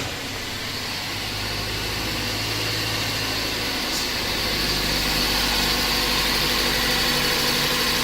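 2004 Toyota Corolla's four-cylinder engine idling just after start-up. It runs rough with a misfire from a faulty ignition coil, which makes the hesitation and vibration. The engine's note shifts about halfway through.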